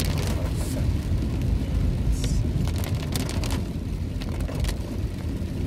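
Steady low rumble of a car's engine and tyres on a wet road, heard from inside the cabin, with scattered ticks of raindrops hitting the car. About two seconds in there is a brief hiss.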